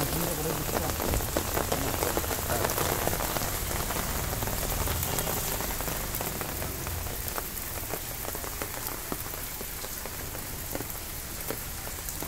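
Steady rain falling on concrete and on water standing in a drainage channel, with many separate drop hits.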